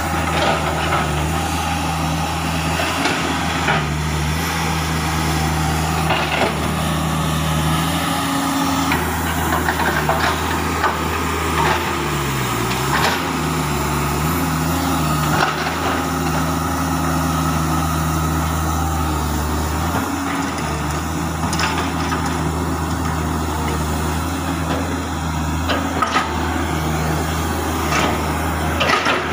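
Komatsu PC200 hydraulic excavator's diesel engine running steadily at working revs, its pitch dipping briefly about twelve seconds in and coming back up. Occasional knocks and clanks sound over the engine.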